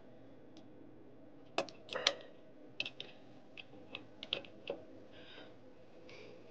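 Light metallic clicks and taps of an ignition lead's connector being fitted and threaded by hand onto a CFM56-5B engine's ignition exciter, about a dozen in an irregular scatter through the middle.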